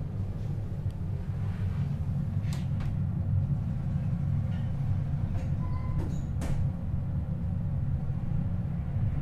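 Passenger elevator car travelling upward: a steady low rumble with a few faint clicks.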